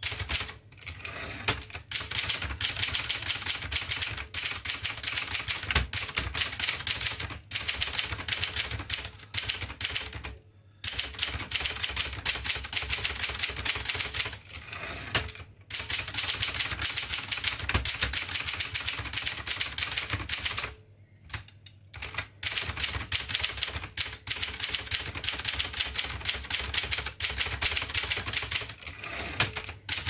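Rapid manual typing on a 1958 Adler Special typewriter: fast runs of sharp key strikes broken by a few short pauses.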